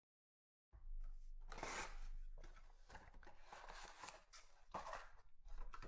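Cardboard trading-card box (a Panini Certified hobby box) being opened by hand: scraping, rustling and tearing of the lid and flaps, with the packs inside brushed, starting suddenly about a second in.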